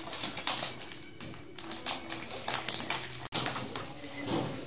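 Clear plastic wrap and tape crinkling and rustling as they are pulled off a cardboard chocolate gift box, with light taps on the cardboard.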